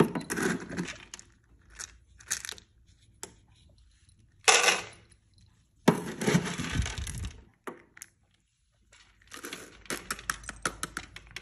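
Dry cat kibble rattling as it is scooped with a plastic scoop and poured into a stainless steel bowl, in several separate pours, the loudest about four and six seconds in.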